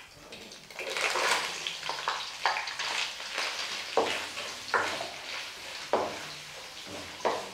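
A stir fry sizzling in a hot pot while being stirred, starting up about a second in, with a utensil knocking and scraping against the pot about once a second.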